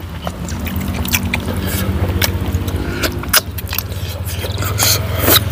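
Close mouth sounds of eating chicken: wet chewing and lip smacks as many sharp clicks. Under them runs a steady low motor hum.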